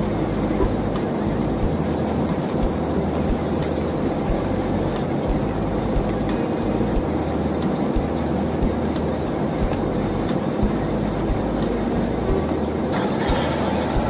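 Engine running steadily, a low continuous drone with scattered light clicks and knocks over it, and a short rise of hissy noise near the end.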